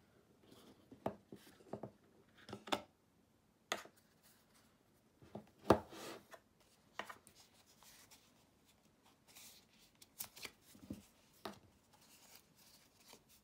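Unboxing handling sounds: a cardboard watch box and its insert tray sliding, rubbing and tapping as the tray is lifted out and the watch is picked up, with scattered clicks and knocks. The loudest knock comes a little before the middle.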